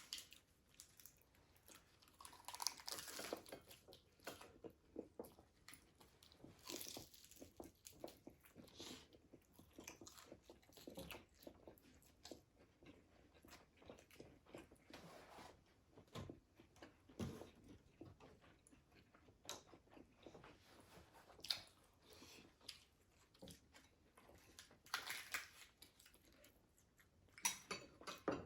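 Close-up chewing and crunching of crispy fried food, with irregular crackly bites and mouth sounds coming in bursts, the strongest near the start and near the end.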